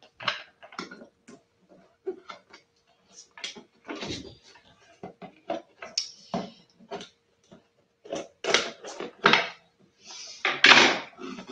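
Paper sheets and a small packet being handled on a table: irregular rustling, crinkling and small knocks, loudest a little before the end.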